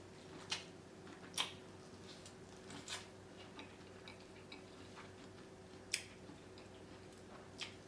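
Faint eating sounds from a seafood boil: a few scattered, sharp clicks and smacks of shellfish being peeled and chewed, over a steady low hum.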